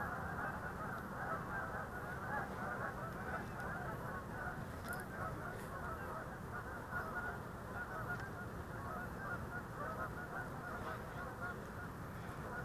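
A large flock of geese honking, many calls overlapping in a dense, unbroken chorus, over a steady low rumble.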